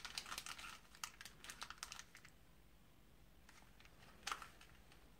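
Faint rustling and small clicks as TV wall-mount screws and their packaging are handled and sorted, busiest in the first two seconds, then one sharp click about a second before the end.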